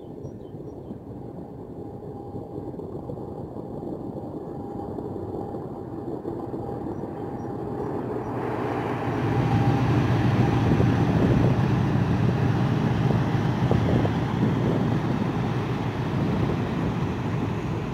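Inland tanker barge's engine passing below: a low rumbling drone that grows steadily, gets much louder with a rushing noise about halfway through, and is loudest as the stern and wheelhouse go by.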